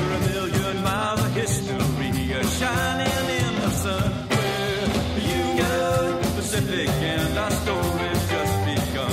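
Rockabilly band music with a steady drum beat.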